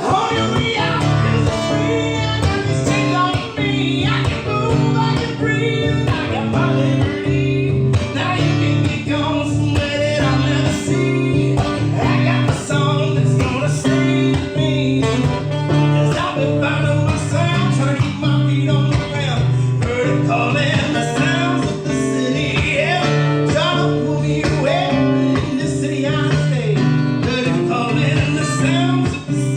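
Live band jamming: strummed guitar over a bass line that steps from note to note, with a lead melody on top.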